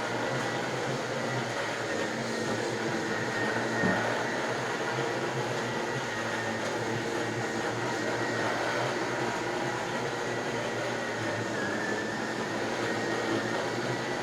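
Miele Solaris canister vacuum running steadily at its reduced 700-watt setting, very quiet, as its gentle-bristled tool is worked over a mattress. A brief knock comes about four seconds in.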